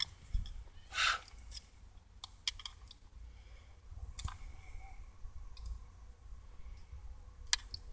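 Small handling clicks and rattles of a screwdriver and the ignition switch's electrical part being turned and fitted by hand: a brief rustle about a second in, then a few scattered sharp clicks, the sharpest near the end.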